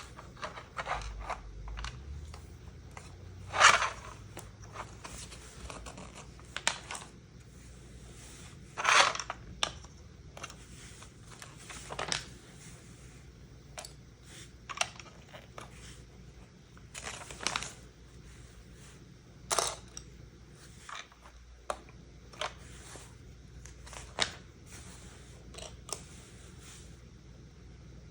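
LEGO pieces and their plastic packaging being handled: irregular sharp clicks and short rustles, a dozen or so spaced a second or two apart.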